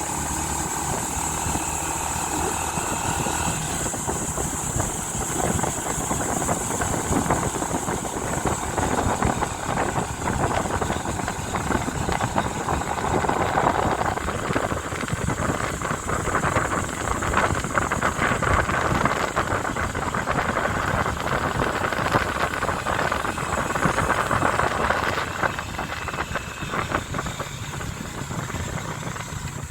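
Motorcycle under way, its engine mixed with heavy wind and rough road noise, plus a steady high whine. The noise builds in the middle and eases near the end.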